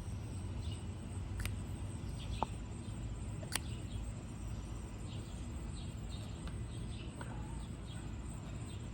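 Plastic lip gloss tubes and caps being handled: a few sharp clicks and a short ping over a low, steady background hum.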